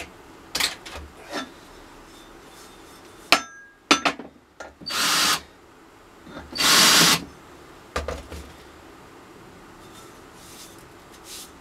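Power drill with a chamfering bit running in two short bursts, each about half a second, about a second and a half apart, chamfering holes in a press plate. A few sharp knocks of parts being handled come before and after the bursts.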